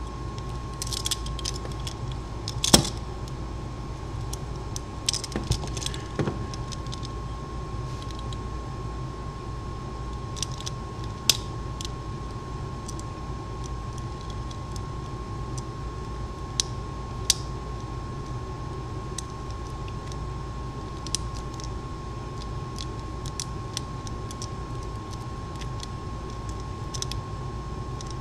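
Lever-lock picking in a Squire 440 four-lever padlock: a pick and tension bar working inside the lock, making small, irregular metallic clicks and scrapes, busiest in the first few seconds, then sparser. Under them runs a steady low hum with a faint constant high tone.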